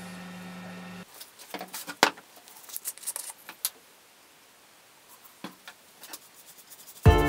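A steady hum that cuts off suddenly about a second in, then scattered small clicks and knocks of a plastic bottle and a paintbrush being handled against a plywood stitching pony as mineral oil is poured on and brushed in. Music starts near the end.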